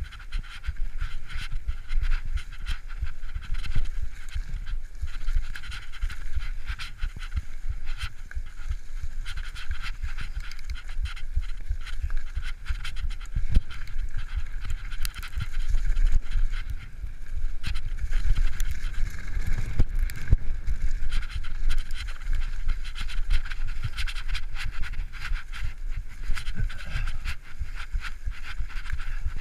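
Mountain bike ridden fast over a leaf-covered dirt trail: a constant low rumble of wind and tyre noise with frequent clicks and rattles, and the rider panting hard close by.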